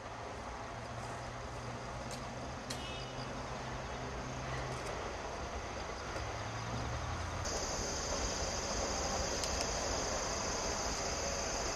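Insects chirring steadily in trackside grass, much louder and higher after a cut about halfway through. Under the first half there is a faint low drone of an electric train that has just passed, dying away.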